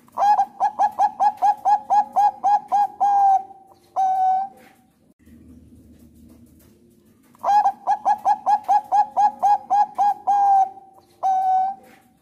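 Zebra dove (Thai-bred perkutut bangkok) singing two full song phrases: each a fast run of about a dozen short coos, about four a second, ending in a longer held coo, then after a brief pause a single final coo. The second phrase starts about halfway through.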